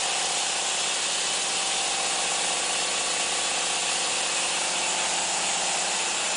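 Horizontal band sawmill running, its band blade sawing through wood with a steady high hiss over a faint low hum.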